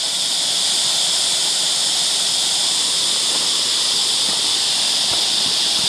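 Steady high-pitched buzz of a cicada chorus, unbroken and loud.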